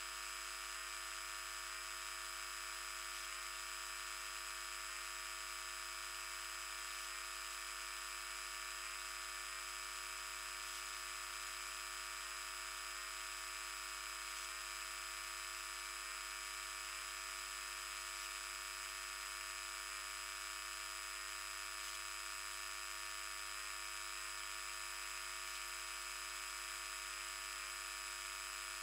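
The 50 Hz electrical grid's mains voltage played as sound through a high-pass filter: a steady, unchanging buzz of many high-pitched tones over a hiss. These are the grid's higher-order harmonics, a lot of harmonic noise put onto the mains by something connected to it.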